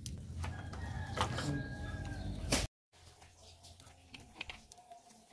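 A rooster crowing: one long, held call that cuts off suddenly about two and a half seconds in. After it come a few faint clicks and knocks.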